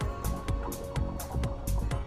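Background electronic music with a steady beat.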